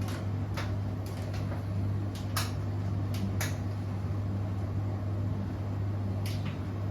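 Beko WTK104121W washing machine running mid-cycle: a steady low motor hum with several sharp clicks scattered through it.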